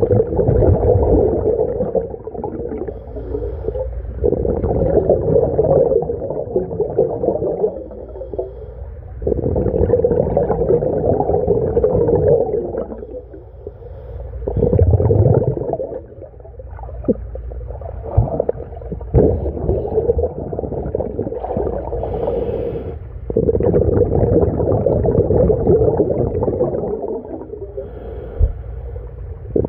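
Scuba diver breathing through the regulator of a SMACO mini scuba tank, heard underwater: long rumbling, bubbly exhalations of a few seconds each, about six of them, alternating with quieter inhales.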